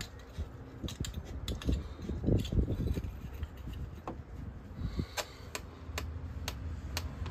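Metal hand tools clinking and clicking during work on the engine. Near the end comes a run of sharp, evenly spaced clicks, about two a second.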